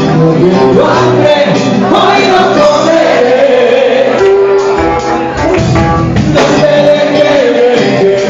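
Rock band playing live, with sung vocals over guitars and drums.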